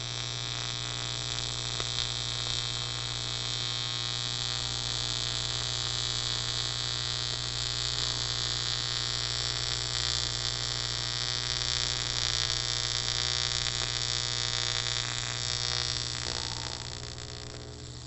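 Steady buzz and hiss of an AC TIG welding arc on 6061 aluminium tube while the puddle is weaved across a gapped joint. It fades near the end as the weld is finished.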